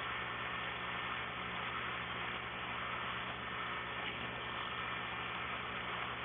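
A steady low hum with an even hiss over it, unchanging throughout.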